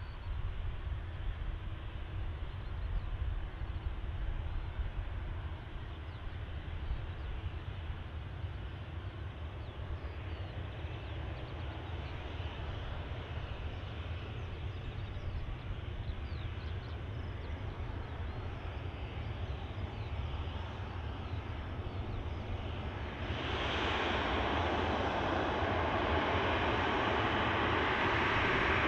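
Jet airliner engines running as a steady rumble. About 23 seconds in, the noise steps up suddenly to a much louder rushing roar.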